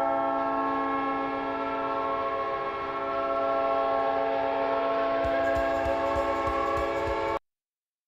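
Winnipeg Jets goal horn: one long, steady horn blast sounding several tones at once, cutting off suddenly about seven seconds in.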